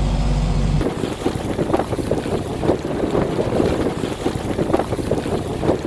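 Wind buffeting the microphone and water rushing and splashing along a sailboat's hull in rough, steep seas. A low engine hum is heard at first and cuts off abruptly under a second in.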